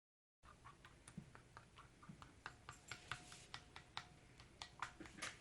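Spoon stirring thickening clear-glue slime in a bowl: faint, irregular clicks and taps of the spoon against the bowl, starting about half a second in.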